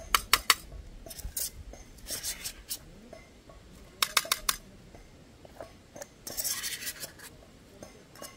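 A metal utensil clinking and scraping against a metal dish, in several short runs of sharp clicks and scrapes.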